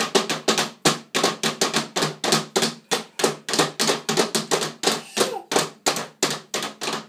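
Small toy figures banged repeatedly on the top floor of a wooden dollhouse: a rapid, irregular clatter of knocks, about three or four a second.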